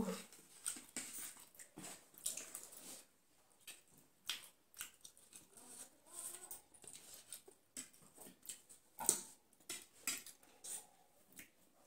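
Mukbang eating sounds: forks and spoons clicking and scraping on plates, with chewing and slurping of spicy ramen noodles, in scattered short clicks.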